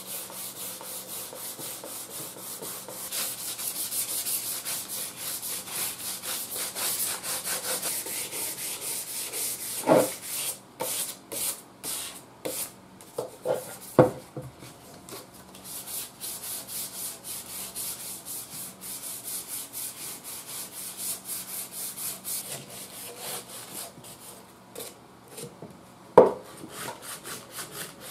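Hand sanding with 220-grit sandpaper on an old Philco radio's outer case: quick, steady back-and-forth scraping strokes that scuff the gloss to a dull finish so paint will stick. A few knocks come as the case is handled, the sharpest one near the end.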